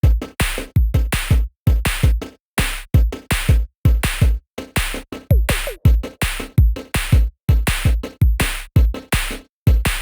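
Electronic music with a heavy drum-machine beat, booming kick drums and sharp hits in a fast regular rhythm.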